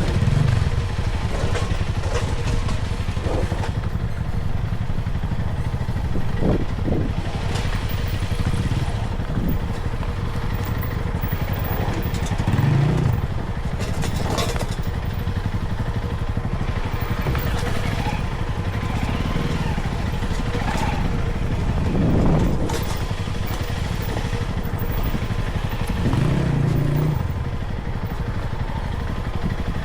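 A vehicle engine running steadily while driving over a rough off-road track, swelling in loudness several times as it is revved. Occasional knocks and rattles come from the bumpy ground.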